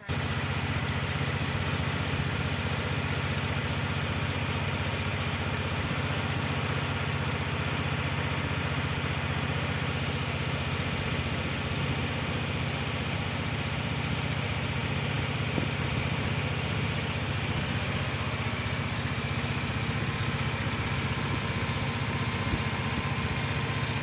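Small boat's engine running steadily at an even speed, heard from on board.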